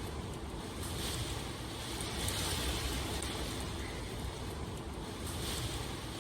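Steady rain ambience: an even hiss of falling rain that swells and eases gently every couple of seconds.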